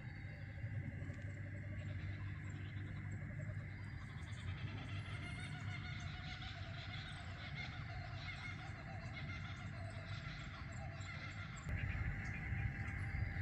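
Evening chorus of many birds calling and chirping over a steady high-pitched drone and a low rumble; the sound gets louder and changes about twelve seconds in.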